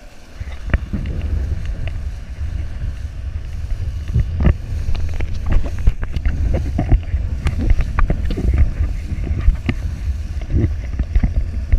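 Wind buffeting the microphone of a camera riding on an inflatable banana boat towed at speed, a steady low rumble, with water splashing and irregular knocks and thuds as the tube bounces over the wake.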